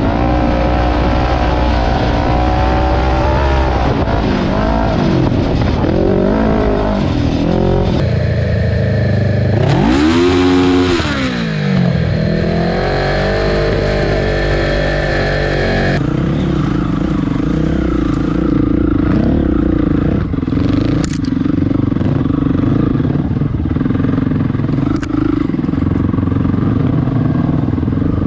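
Kawasaki Ninja 650 parallel-twin engine in an off-road go-kart, running and revving on a dirt trail, its pitch rising and falling with the throttle. There is one quick rise and drop about ten seconds in. In the second half the engine note is steadier.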